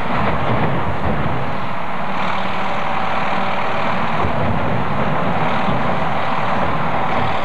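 Steady vehicle engine noise running throughout.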